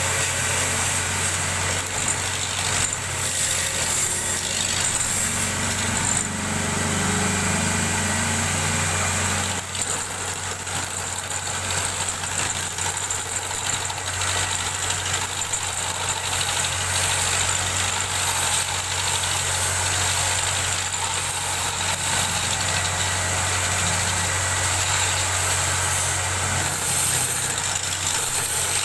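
Wood lathe running steadily: a constant low motor hum under a continuous hiss, typical of a tool cutting the spinning wood.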